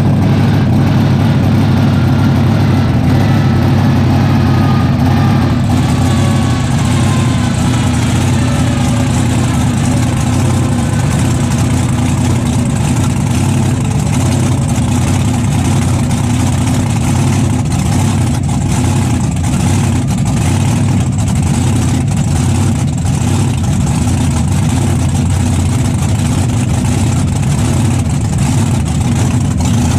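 A 1500 hp monster truck engine idling steadily at an even, low pitch, heard loud from inside the cab.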